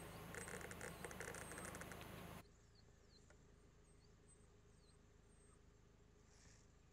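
Faint bush ambience with short, high, downward-sliding bird chirps. In the first two seconds there is a run of rapid high squeaks, and the sound drops quieter at a cut about two and a half seconds in.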